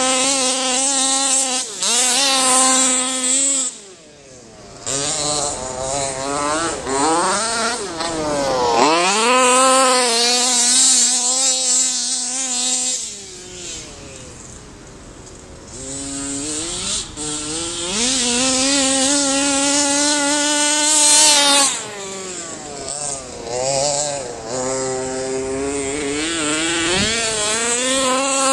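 HPI Baja 5B RC buggy's ported two-stroke engine, with a reed-valve case and a TGN tuned expansion pipe, revving hard as the car is driven. It climbs to high, steady wails, and its pitch dips and climbs again several times as the throttle is lifted and reapplied. It fades while the car is farther off.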